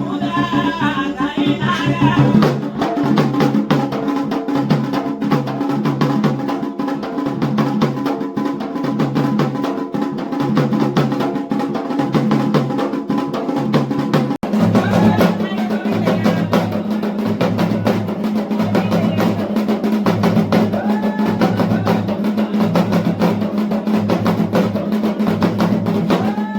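Loud music driven by a steady, fast drum beat, with sustained low notes under it. It changes abruptly about halfway through, to a slightly different beat.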